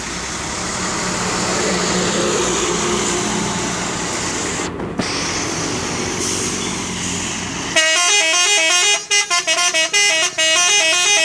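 A truck's engine and road noise, then about eight seconds in a telolet horn plays a quick melody of stepping tones. The melody breaks into short toots before running on as a held phrase near the end.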